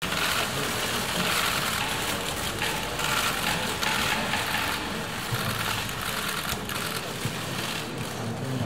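Rapid, continuous clicking of many press camera shutters firing at once, over a low murmur of voices in a reverberant hall.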